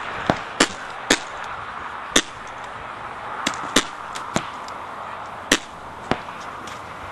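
Pump paintball markers firing single shots: about nine sharp pops at uneven intervals over a steady background hiss.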